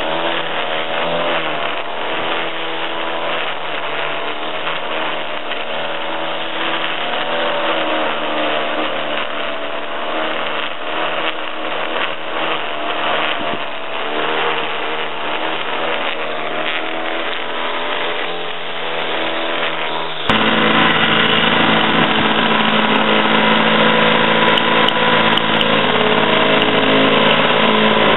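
Petrol line trimmer running at high revs, its speed wavering as the cutting line strips grass and soil along a garden-bed edge. About twenty seconds in the sound cuts abruptly to a petrol push lawn mower running steadily and louder.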